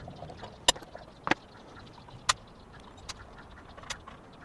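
Socket wrench working the knife-clamp bolts on a Makita 2012NB planer's cutter head, loosening them to free the knife: about five sharp metallic clicks spread over a few seconds.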